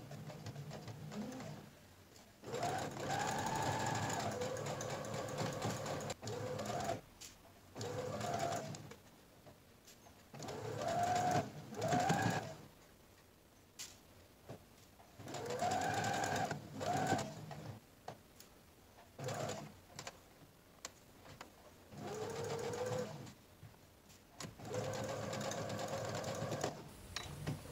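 Brother CS6000i computerized sewing machine stitching a curved patchwork seam in about seven stop-and-go runs, from under a second to about four seconds each, with short pauses between. Its motor pitch rises and falls within the runs as it speeds up and slows.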